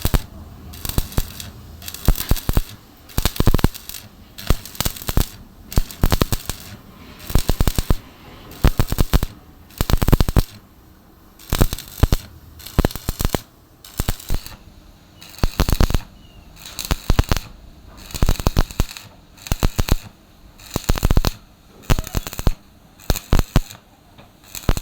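Electric arc welding crackling in short, repeated bursts, about one a second, with quieter pauses between them.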